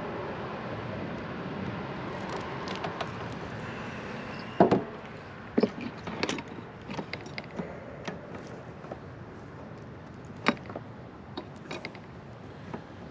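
Hand work on a wiring connector: a string of sharp clicks and knocks from tools and parts being handled, the loudest about four and a half seconds in and again about ten and a half seconds in, over a steady background noise that eases after about four seconds.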